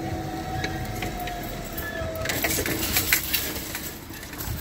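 Level-crossing barrier drive whining as the booms lift, sinking slightly in pitch and stopping about two seconds in, followed by a second or so of clicks and clatter from the barrier gear.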